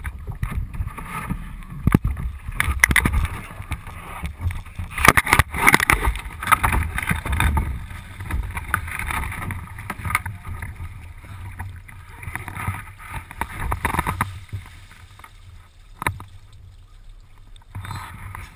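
Knocks, bumps and rubbing on a canoe's hull as the canoe is turned over and moved, heard through a camera fixed to the hull, over a low rumble of handling noise. A sharp single knock comes near the end.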